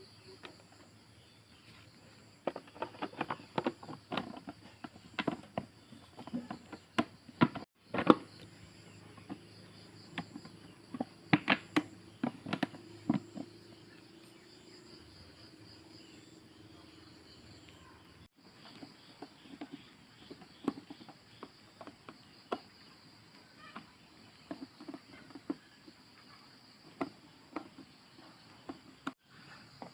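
Scattered sharp clicks and knocks, thickest in the first half, over a steady high insect chirr.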